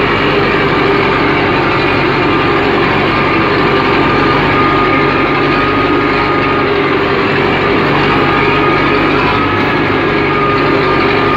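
UTB U650 tractor's four-cylinder diesel engine running steadily under load while ploughing, heard from the driver's seat in the cab, with a steady high whine over the engine note.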